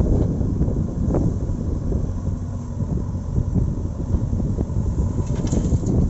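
JCB backhoe loader's diesel engine running steadily under load as the backhoe arm digs and lifts a bucket of soil. Near the end, a brief rush as the soil pours out of the bucket.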